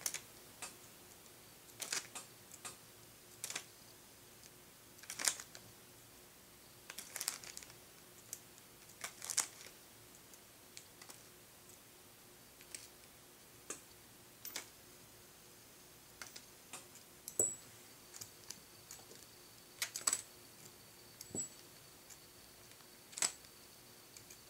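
Small metal screws, nuts and washers clicking against each other as they are picked up and dropped by hand into a small plastic bag, with brief crinkles of the bag. Irregular light clicks, one every second or two.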